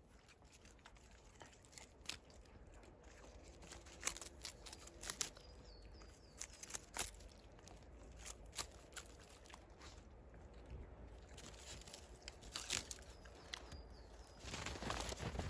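Shiba Inu biting and chewing bamboo grass leaves: faint, scattered crisp crunches and tearing snaps as the dry leaves are bitten and pulled. Louder rustling about a second before the end.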